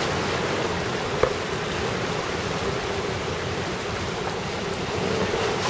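Steady rush of rough sea and breaking surf, the waves raised by a typhoon's outer circulation, with one brief tick about a second in.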